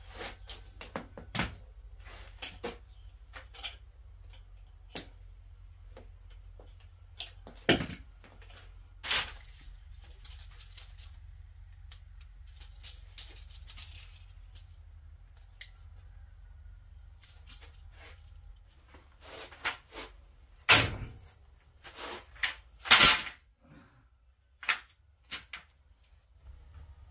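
Scattered clicks and knocks of steel pipes being handled, with two loud metal clanks about two-thirds of the way in. After the first of these a thin ringing tone from the struck steel hangs on for a few seconds.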